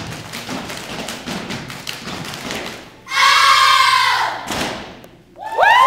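Children's step team stamping and clapping a fast rhythm of thuds and slaps for about three seconds. Then comes a loud shout from many young voices, held for over a second. Near the end, high children's voices rise into cheering and screaming.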